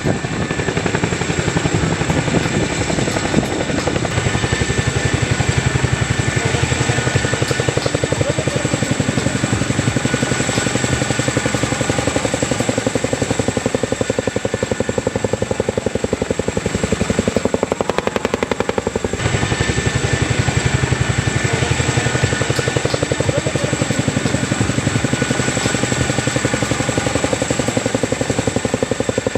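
Boeing CH-47 Chinook tandem-rotor helicopter flying low, its rotor blades beating in a fast, steady chop. The sound thins briefly a little past the middle.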